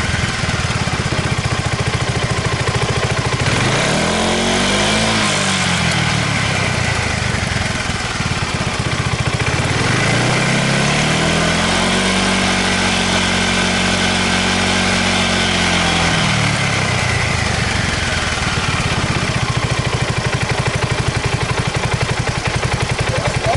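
2005 Suzuki Burgman 400 scooter's single-cylinder engine idling through an aftermarket MIVV muffler. It is blipped briefly about four seconds in, then revved again about ten seconds in and held for several seconds before dropping back to idle.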